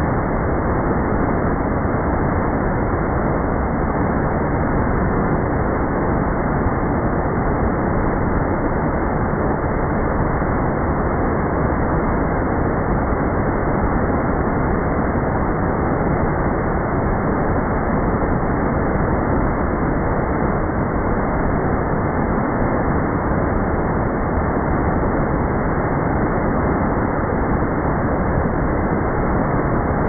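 Waterfalls pouring into a plunge pool: a steady, unchanging rush of falling water.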